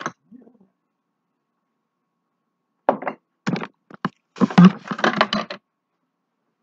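Knocks and thuds of kitchen items being picked up and set down, starting about three seconds in and running together into a denser clatter for about a second.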